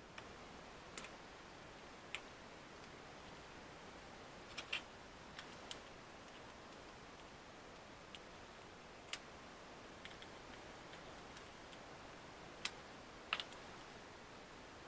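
Scattered small clicks and taps, about ten irregularly spaced, as fingers work the ribbon-cable connectors and plastic parts inside an opened Dell 3100 Chromebook, over quiet room tone.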